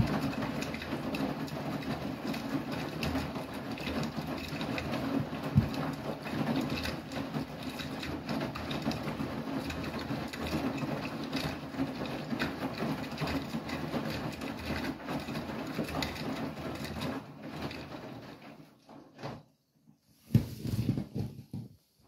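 Beko WTK104121W front-loading washing machine in its main wash: the drum turns and tumbles wet laundry through sudsy water, with steady sloshing and the motor's hum. Near the end the sound dies away as the drum pauses, broken by one short stretch of sound.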